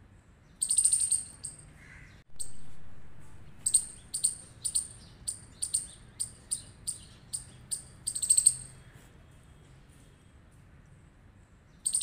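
Palm squirrel giving high, sharp chirps: a short rapid burst about a second in, then a run of single chirps at about two to three a second, ending in another rapid burst.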